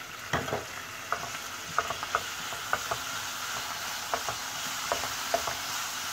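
Minced meat sizzling in hot oil in a frying pan, the sizzle building as a wooden spatula spreads and breaks it up. The spatula knocks and scrapes against the pan at irregular moments, with the loudest knock about a third of a second in.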